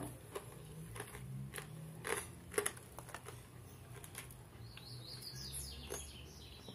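Faint scattered clicks and small crunches of roast pork with crackling being handled and chewed close to the microphone, with faint high chirps in the background about two-thirds of the way through.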